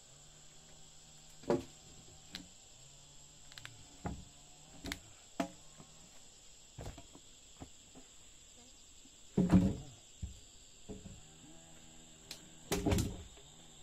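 Insects buzzing steadily in a high, even drone, broken by scattered sharp knocks. The two loudest knocks come clustered, about nine and a half and thirteen seconds in.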